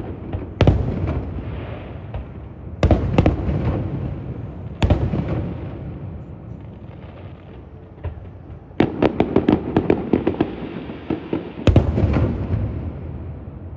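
Fireworks display: single shells burst with sharp booms that trail off in a long rumble, about half a second in, near three seconds and near five seconds. Around nine seconds comes a quick run of crackling pops, and then another big boom near twelve seconds.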